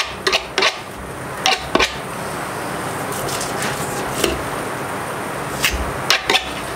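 Knife scraping and cutting into a queen snapper on a fish-cleaning table, with short sharp scrapes and knocks in the first two seconds and again near the end, over a steady hiss.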